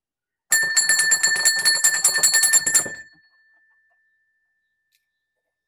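A metal bell rung rapidly, many quick strikes in a row for about two and a half seconds, then left to ring out and fade. It is rung to call the dog in for food.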